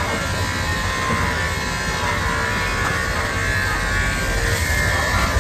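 Electric pet grooming clippers buzzing steadily as they trim the curly hair on a poodle's head.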